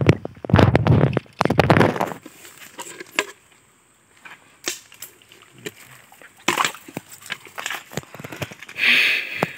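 Hands working among stones and shallow water at a rocky stream edge: scattered knocks of stone and small splashes. There are two louder, rough bursts in the first two seconds and a short rushing sound near the end.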